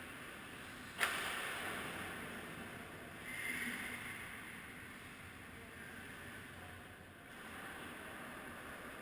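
Ice hockey play in an arena: a puck cracks sharply about a second in and echoes around the rink, then skate blades scrape on the ice about three and a half seconds in as players crowd the net.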